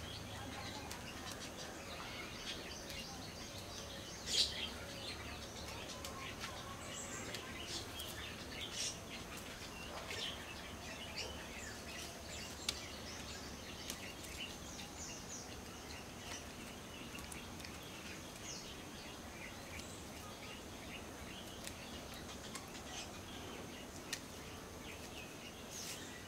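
Faint outdoor ambience with small birds chirping on and off. A few sharp clicks stand out, the loudest about four seconds in.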